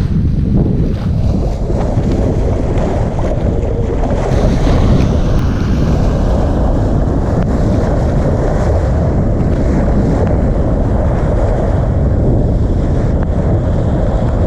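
Steady wind buffeting the microphone over the rush of water along the hull of a Volvo 65 racing yacht under sail.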